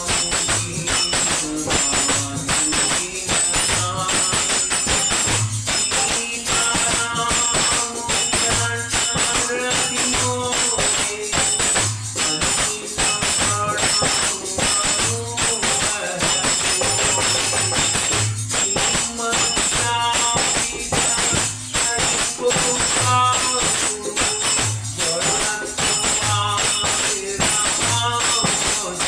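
Devotional music: steady jingling percussion over a low drum beat about once a second, with a melody line weaving above.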